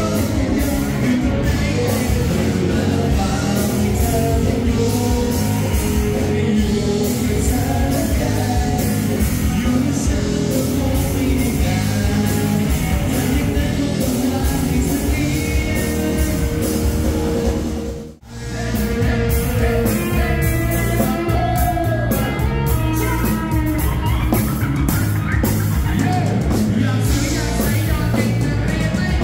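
Loud dance music with a singer, played through a party PA sound system. It drops out for a moment about eighteen seconds in.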